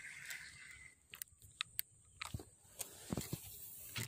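Irregular clicks and knocks, some with a dull thud, of a spinning rod and reel being handled right at the microphone.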